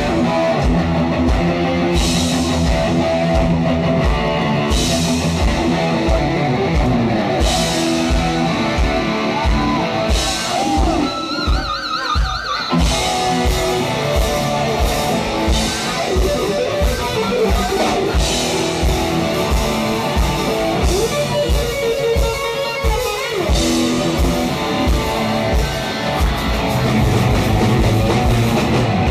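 Live rock band with a lead electric guitar solo on a Stratocaster-style guitar through a Marshall amplifier: sustained, bent notes with wide vibrato over a steady kick drum and crash cymbals. The cymbal crashes come every two to three seconds in the first third, and the drums thin out for a moment midway while the guitar holds a wavering note.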